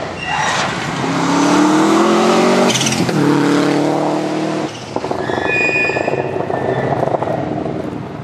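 Rally car engine at full throttle, its revs climbing and dropping back at quick upshifts about three seconds in and again near five seconds. A high-pitched squeal sounds for about a second and a half in the second half.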